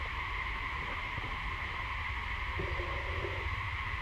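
Steady outdoor background: a constant high-pitched drone over a low rumble, with a faint brief animal call about two and a half seconds in.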